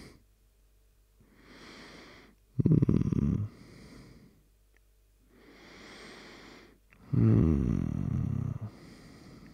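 Close-miked man's breathing, two slow cycles. Each is a soft in-breath followed by a louder, rough out-breath.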